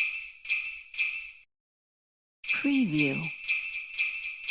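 Sleigh bells shaken in a steady rhythm of about two shakes a second. They cut off about a second and a half in, and after a second of dead silence another run of shaking starts.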